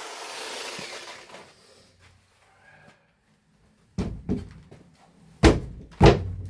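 Hard knocks on wood framing: two lighter ones about four seconds in, then two loud ones about half a second apart near the end. A noisy rush fades out during the first second and a half.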